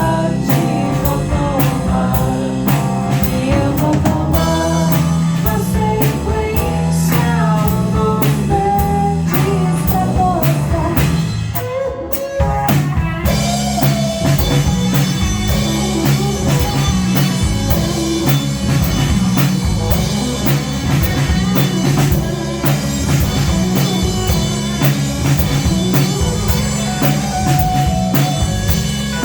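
A live rock band playing through a sound check, with drums keeping a steady beat under a bass line and a melody. About twelve seconds in the music breaks off briefly, then the full band comes back in with cymbals.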